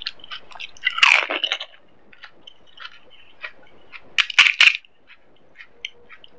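Crisp fried panipuri (golgappa) shells filled with spiced water, cracking and being crunched. There is a loud crunch about a second in and a quick cluster of sharp cracks about four seconds in, with quieter wet chewing and small clicks between.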